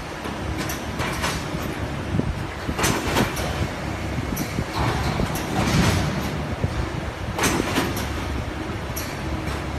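Cross-feed veneer splicing machine running: a steady mechanical clatter with irregular sharp clicks and knocks every second or so.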